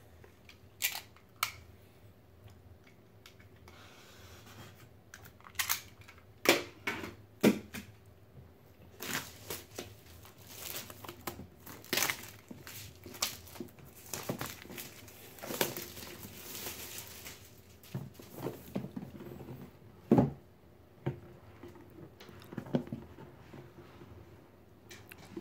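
Plastic shrink wrap being torn and peeled off a cardboard board-game box, crinkling and crackling most densely in the middle, with a few knocks as the box is handled on the table.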